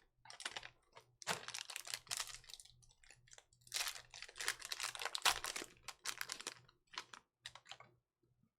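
Trading card boxes, wrappers and cards being handled: a busy run of crinkling, rustling and clicking that stops about eight seconds in.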